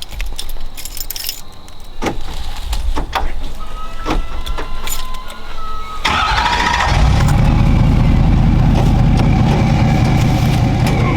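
A few clicks, then about six seconds in a vehicle engine cranks briefly, catches and settles into a steady idle.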